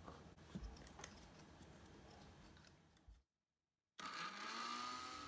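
Faint clicks and knocks as the plastic blender jug and lid are handled, then after a moment of dead silence an electric blender's motor starts up, its hum rising in pitch and levelling off as it begins to purée kiwi.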